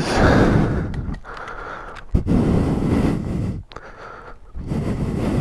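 Heavy, strained breathing of a man exerting himself, three long noisy breaths in a row.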